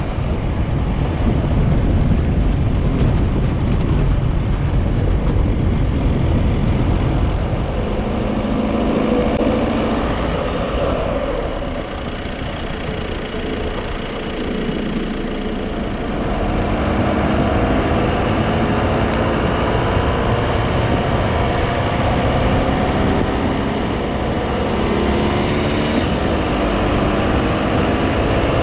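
Car engine and road noise heard from inside the moving car: a steady low rumble, with the engine's pitch rising and falling from about a third of the way in as the driver changes speed.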